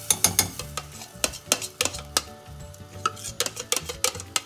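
Metal spoon stirring a thick cheese-sauce mixture in a stainless steel saucepan, knocking and scraping against the pan in quick, irregular clicks, several a second.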